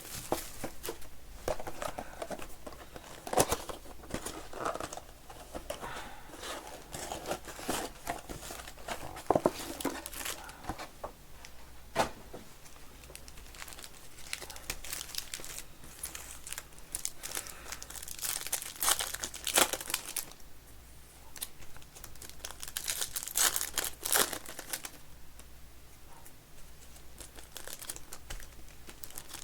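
Plastic wrapping on trading-card packs and a mega box being torn open and crinkled by hand, with a few sharp clicks.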